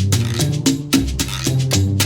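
Upbeat Latin-style music with a bouncing bass line and sharp percussion strokes.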